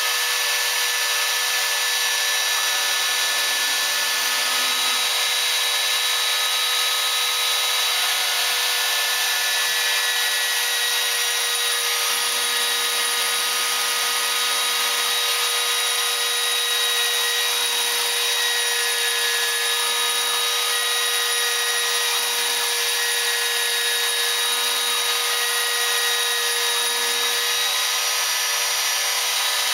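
Homebuilt CNC router running steadily: a constant high whine and hiss from the spindle, with a lower hum that starts and stops every second or two.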